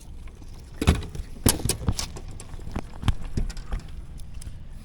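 Irregular knocks and clatters, the sharpest about a second in and again around a second and a half to two seconds, with a few lighter ones later, over a low steady rumble.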